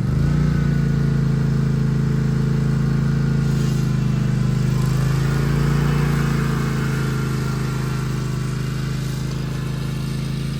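Zero-turn lawn mower engine running at full throttle: it rises a little in pitch at the start, then holds a steady drone.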